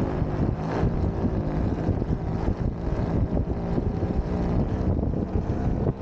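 Heavy wind buffeting the microphone, steady throughout, over the rumble of a Kingsong S22 Pro electric unicycle's knobby tyre rolling on asphalt.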